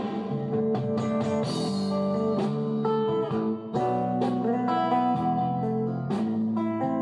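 Background music: plucked guitar notes and strums.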